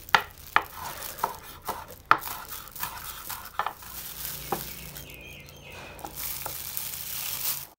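Kitchen knife chopping green onions on a bamboo cutting board: sharp, irregular knocks of the blade on the wood, coming thick for the first four seconds or so and then only a few more.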